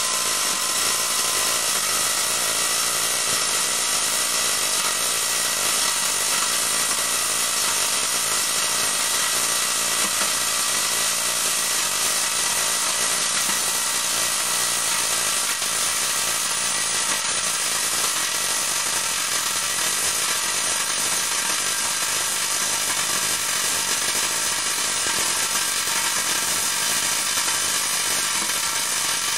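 Steady hiss and crackle of a MIG welding arc from an automatic orbital pipe welder, running without a break at an even level.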